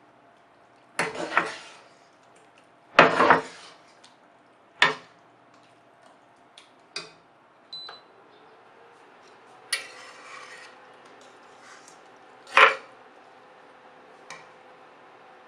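Metal cookware and utensils clanking and scraping against one another, in about seven separate knocks. The loudest come about a second in, around three seconds in and near the end, with one longer scrape lasting about a second at the ten-second mark.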